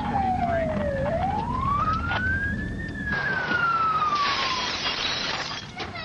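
Emergency vehicle siren in a slow wail: its pitch falls, climbs and falls again over several seconds, above a low vehicle rumble. A short burst of hiss comes about four seconds in.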